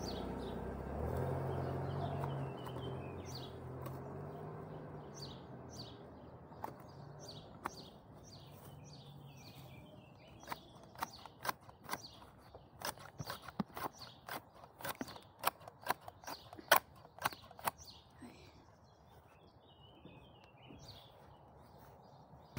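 A car drives past and fades away, then garden shears snip at grass in a run of sharp clicks, about two a second. Birds chirp faintly.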